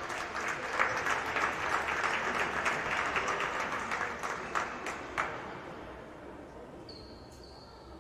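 Hands clapping in applause, a patter of many separate claps that thins out and stops about five seconds in.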